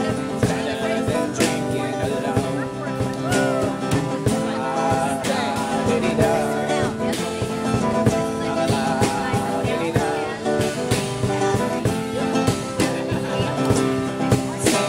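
Live acoustic guitar being strummed at a steady rhythm through a PA, with a melody line that rises and falls above the chords.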